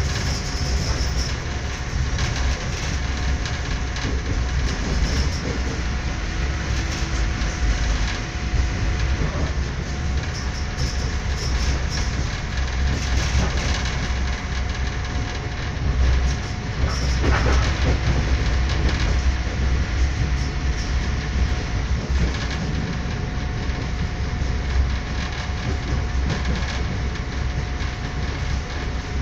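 Passenger train running along the track, heard from inside the carriage: a steady low rumble with the clatter of wheels over the rails and a faint steady hum above it.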